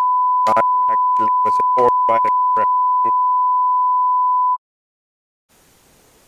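A steady, single-pitched censor bleep tone covering a man's speech, which shows through faintly beneath it. The tone cuts off suddenly about four and a half seconds in. After a second of silence, faint room hiss follows.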